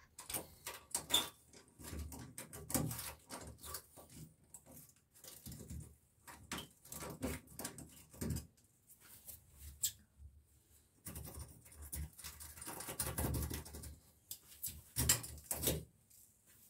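Toothed pliers gripping and turning a threaded steel washbasin fixing bolt out of the wall: irregular small clicks and scrapes of metal on metal, with a short lull about ten seconds in.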